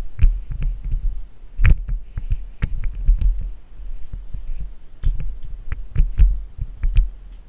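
Footsteps and bumps picked up by a body-worn camera: irregular dull thumps and sharp clicks over a low rumble, the heaviest knocks coming about two seconds in and again near the end.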